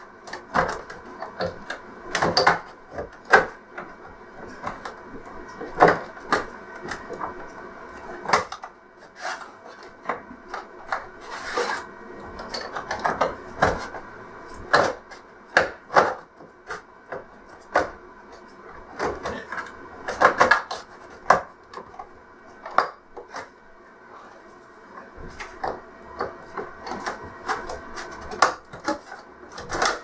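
Plastic casing of an LCD TV being prised apart with a plastic pry tool: irregular clicks, creaks and scraping as the snap-in clips along the edge are worked loose.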